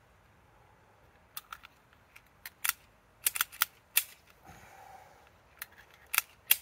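Smith & Wesson .380 pistol being handled: an irregular series of sharp metallic clicks and clacks, about a dozen, with a short scrape a little past halfway.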